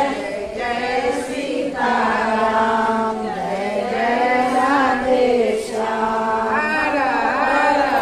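A group of voices chanting a Hindu devotional bhajan in unison. The notes are held and glide up and down in phrases of a second or two.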